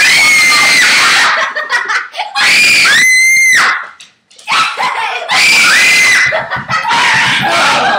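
Repeated loud, high-pitched screaming: several long shrieks in a row, each held for about a second, the shrieks of excitement and fright at a dragonfly being chased around the room.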